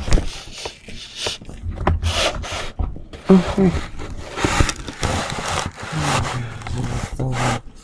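Handling noise: the camera being moved close among cloth rag dolls, with fabric and yarn rubbing and scraping against it in a series of short rustles. A few wordless voice sounds come in between.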